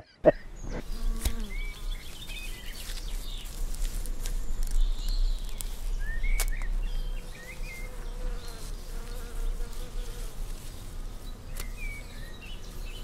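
An insect buzzing close by, a faint wavering hum, with short bird chirps now and then over a low steady rumble.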